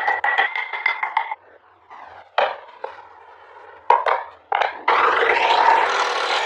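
Wood being worked by hand carving tools: quick rapid strokes for about the first second and a half, a few separate sharp knocks, then a steady scraping on the wood from about five seconds in.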